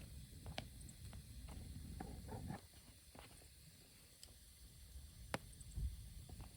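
Wood campfire crackling: irregular sharp pops and snaps, the loudest about half a second and about five and a half seconds in, over a low steady rumble.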